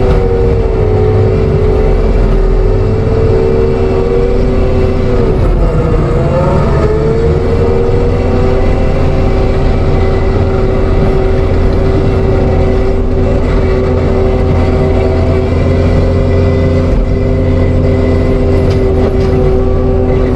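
ASV RT-120F compact track loader running at working throttle with its TMC Cancela forestry mulcher head spinning, a steady loud drone and whine. About six seconds in, the pitch sags briefly and recovers.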